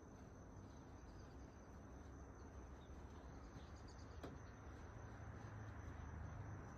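Near silence: faint outdoor ambience with a steady high-pitched insect drone and a low rumble.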